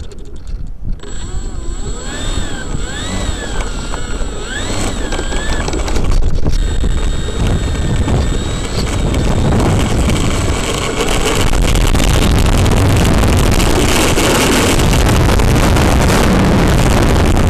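Battery-powered RC airplane's motor and propeller heard from a camera strapped under the plane: a whine that wavers up and down in pitch for the first few seconds, then a louder steady rush of propeller noise, wind on the microphone and wheels rolling on asphalt as it runs up to full power for takeoff, steady from about twelve seconds in.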